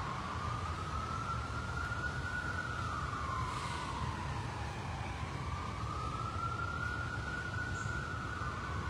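Emergency-vehicle siren in a slow wail, its pitch rising and falling about every five seconds, over a steady low rumble.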